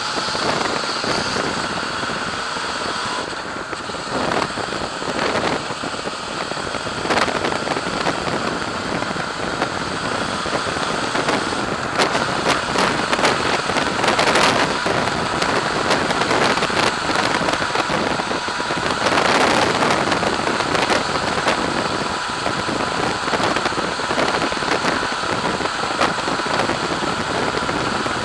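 Motorcycle riding at road speed, heard from a bike-mounted camera: a steady rush of wind and engine drone, with crackling wind buffeting on the microphone. The rush swells a couple of times, briefly.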